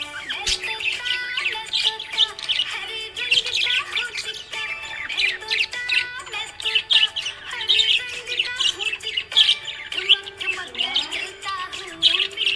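Small pet parrots chirping and chattering in fast, continuous runs of high chirps, over background music with held notes.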